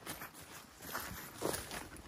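Footsteps of a hunter walking, with a couple of steps in the second half.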